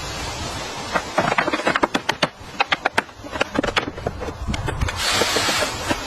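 Hand repair work with tools: a quick, irregular run of sharp taps and clicks, then a brief rushing, scraping noise about five seconds in.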